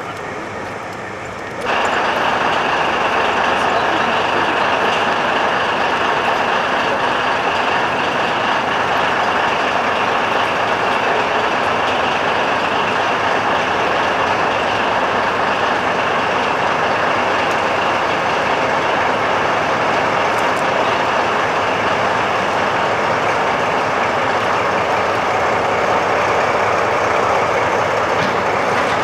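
Diesel locomotive engine running steadily, loud and unchanging, cutting in abruptly about two seconds in.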